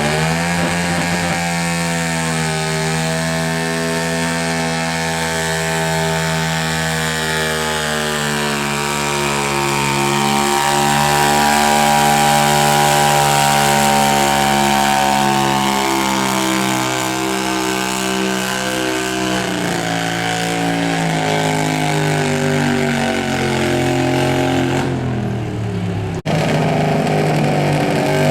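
Garden tractor engine at full throttle pulling a weight-transfer sled. The revs climb in the first second or two, hold steady, then sag in steps through the second half as the load builds, with a sudden brief break near the end.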